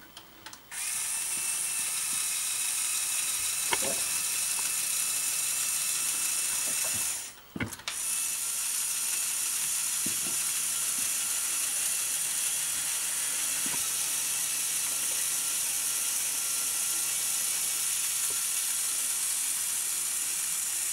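Lego Technic 8109 Flatbed Truck's small electric motor whirring through its plastic gear train, working the tilting flatbed. It runs steadily, stops briefly about seven seconds in, then runs again as the bed is brought back down flat.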